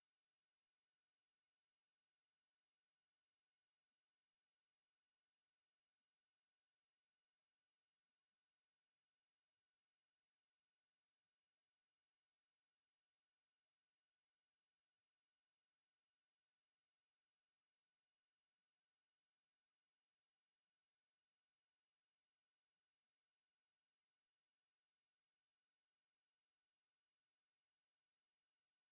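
A single steady, very high-pitched electronic sine tone, held unchanged throughout: a synthesized anti-mosquito repellent tone.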